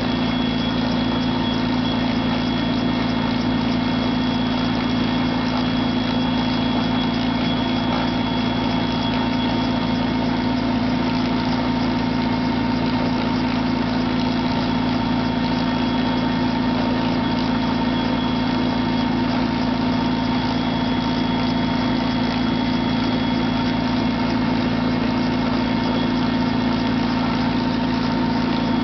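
Helicopter running steadily: a constant low drone with a thin, high, unchanging whine above it.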